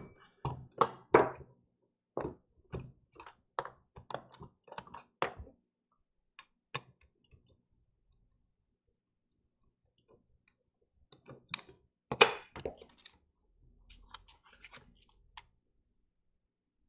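Irregular small clicks and taps of a screwdriver and small parts being handled on a laptop logic board at a workbench, with a louder burst of handling noise about twelve seconds in.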